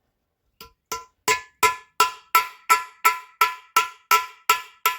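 Steady hammer blows on steel, about three a second, each leaving a clear metallic ring. Faint at first, then loud. The hammer is driving a dowel pin out of an old engine part.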